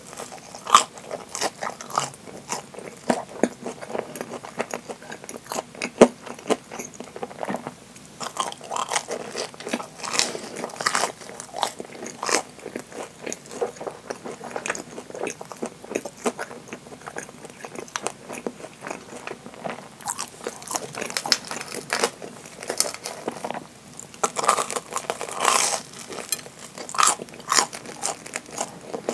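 Crunchy biting and chewing of deep-fried curry bread, its crisp breadcrumb crust crackling in the mouth in many irregular clicks, with louder bursts of crunching several times.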